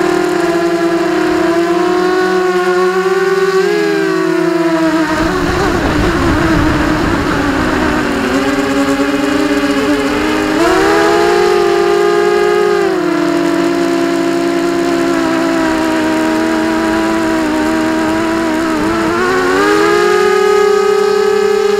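FPV quadcopter's electric motors and propellers whining, heard through the onboard camera, the pitch rising and falling with the throttle. A rougher, rushing stretch comes about five to ten seconds in, and the pitch steps up sharply about ten seconds in and again near the end.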